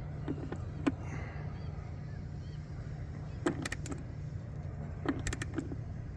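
Metal clicks and clinks of a spark plug socket and wrench as the new spark plugs in an outboard motor are given their final tightening. They come in short clusters about a second in, around three and a half seconds and around five seconds, over a steady low rumble.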